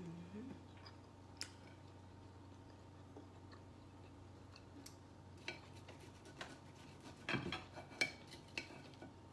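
Faint clicks and clatter of cutlery and dishes during eating: a single click early, then a quick run of sharp clinks, loudest about seven to eight seconds in.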